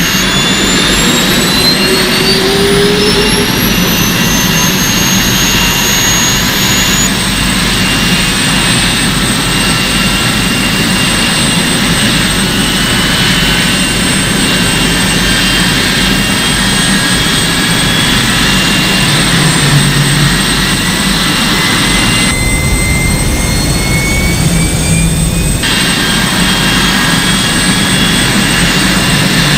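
Jet engines spooling up: a whine climbs in pitch over the first several seconds, then holds as a steady high whine over a loud, continuous roar, with a couple of abrupt cuts.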